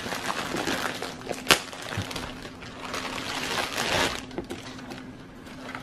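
Packaging being opened and handled: uneven rustling, with a sharp click about one and a half seconds in and a louder stretch of rustling near the end.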